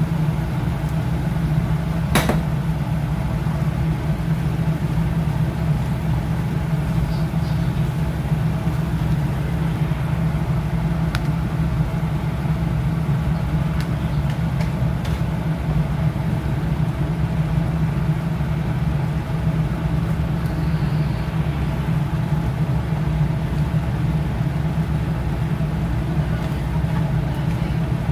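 A steady low mechanical hum, like a motor or fan running, with one sharp click about two seconds in.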